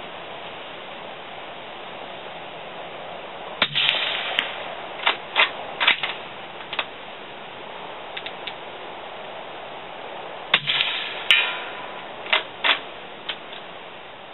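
Two shots from a suppressed .308 FN Patrol Bolt Rifle with an SAS stainless steel suppressor, about seven seconds apart. Each is followed by a run of sharp clicks as the bolt is worked.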